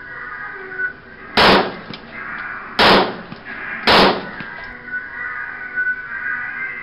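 Three gunshots, each a short, loud blast, a little over a second apart, over background music.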